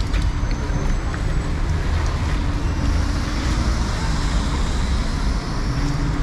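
City street traffic: vehicles running past in a steady low rumble, with a hiss that swells about halfway through.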